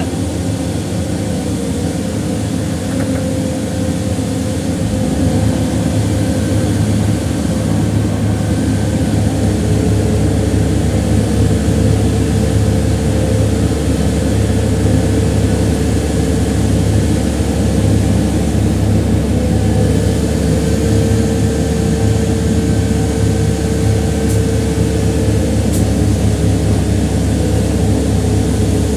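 Heavy engine running steadily. Its low drone grows stronger about five seconds in and again around nine seconds, then holds.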